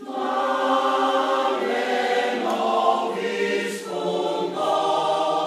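Mixed choir of men's and women's voices singing held chords, coming in loudly right at the start after a hush and moving to new chords several times.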